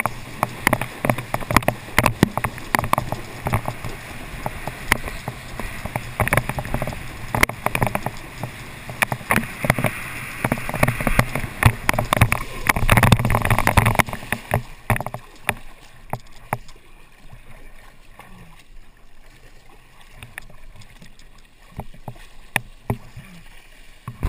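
Water rushing and spraying past a rider towed along by a cable-ski line, with wind buffeting the camera, loudest around 13 seconds in. About 14 seconds in it drops to a much quieter stretch of small splashes and clicks as the rider settles low in the water.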